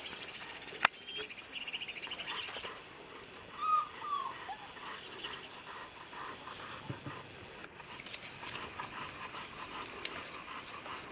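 Bernese mountain dog puppies giving short, squeaky whimpers, loudest about four seconds in, with a single sharp click about a second in.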